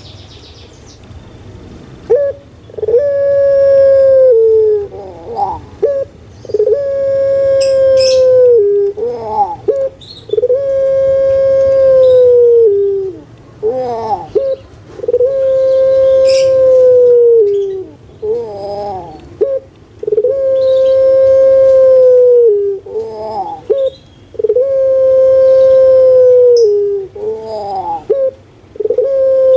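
Puter pelung (Barbary dove, Streptopelia risoria) singing its coo. Each phrase is a few short rising notes followed by one long, drawn-out note that drops away at its end, and the phrase comes six times, about every four seconds.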